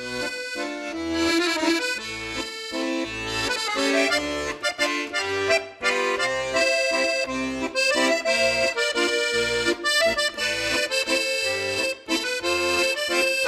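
Instrumental background music: a busy melody of quick notes over a bass line of separate held notes.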